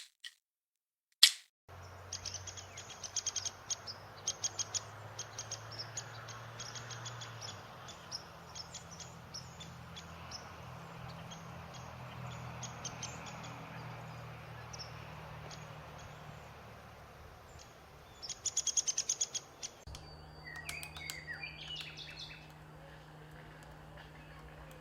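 Woodpecker pecking and chipping at wood while excavating a nest hole: irregular clusters of sharp taps, with a fast, louder run of taps about three-quarters of the way through. Other birds call faintly near the end.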